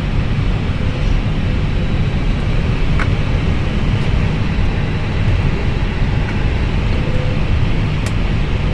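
Airbus A320 with its engines running, a steady low rumble with a hiss over it, and a faint click about three seconds in.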